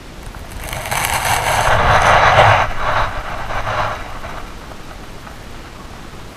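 Handling noise from the GoPro being moved against the rock: a loud scraping, rustling rush that starts about half a second in and dies away after about four seconds, over a steady hiss of water in the cave.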